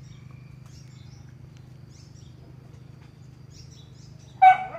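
Small birds chirping faintly on and off over a steady low hum. Near the end comes one short, loud pitched cry.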